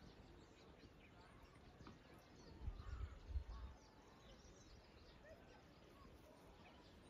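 Faint outdoor ambience with birds chirping here and there, and a brief low rumble about three seconds in.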